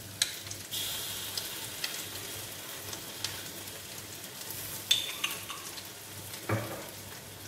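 Yellow noodles and egg frying in a hot wok: a steady sizzling hiss, broken by a few short knocks and clicks.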